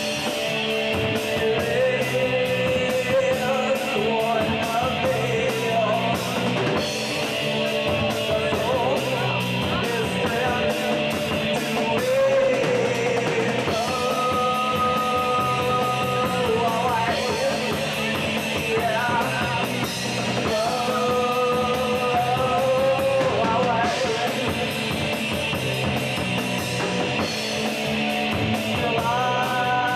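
Live rock band playing loud: electric guitars and a drum kit, with a singer holding long notes several times.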